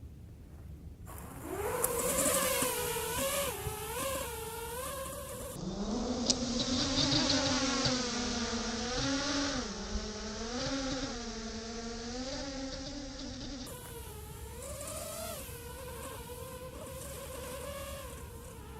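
Eachine Wizard X220 racing quadcopter's brushless motors and propellers buzzing in flight, starting about a second in. The whine rises and falls in pitch as the throttle changes. For several seconds in the middle it sounds lower and duller.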